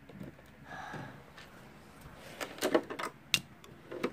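Plastic Lego pieces clicking and knocking against each other as they are handled, a quick cluster of sharp clicks in the second half with the loudest near the end.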